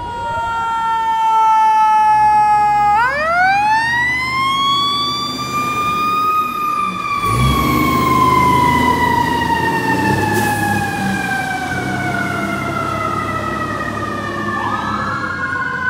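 Fire rescue truck's siren: a wail that falls slowly, rises sharply about three seconds in, then falls slowly for the rest, over a heavy truck engine's rumble. Near the end a second siren starts rising.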